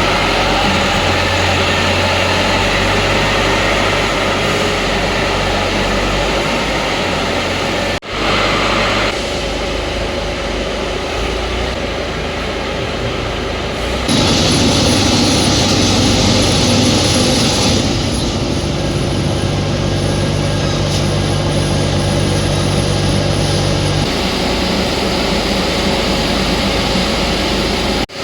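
Hydraulic press block machine running: a loud steady machinery hum and hiss from its hydraulic pumps and motors, which changes in pitch and loudness every few seconds and breaks off abruptly once.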